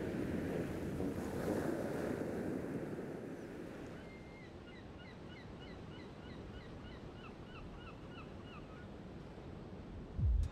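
Sea surf washing on a shingle beach, fading after a few seconds to a faint wash of water with a run of many short, high bird chirps. A bass beat cuts in at the very end.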